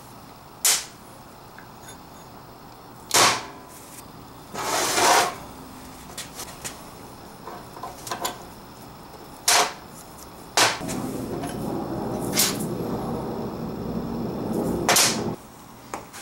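Metal parts of an old Blackhawk hydraulic bottle jack's pump linkage being taken apart by hand with pliers: sharp clicks and knocks of steel on steel, about seven of them spread through, with a few seconds of continuous handling noise in the second half.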